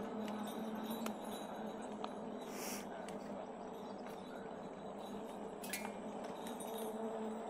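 Mooncool TK1 electric trike rolling over a rough trail: a steady low hum with tyre noise underneath, and scattered light clinks and rattles.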